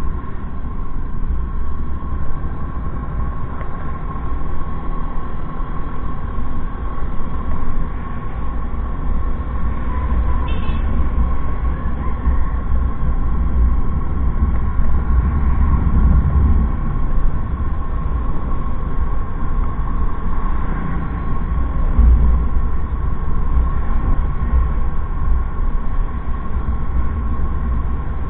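Steady rumble of wind buffeting the microphone, with engine and road noise from a motorbike riding along a highway; a faint steady whine runs through it.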